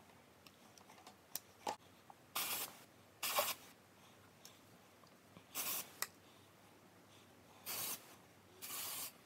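Aerosol can of hair product sprayed in five short hissing bursts, each about half a second long, with a few light clicks between them.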